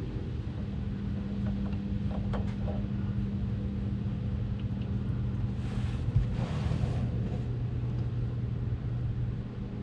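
A steady low engine hum with a rumble underneath, a few light clicks, and a short hiss about six seconds in.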